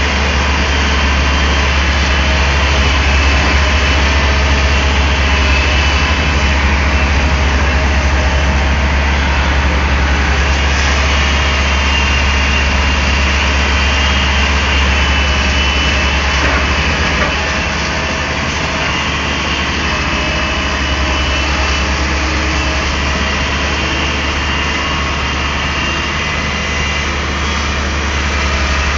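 Diesel engine of a Daewoo Solar 280 LC-III crawler excavator running steadily with a deep low hum, dropping a little in level a little over halfway through.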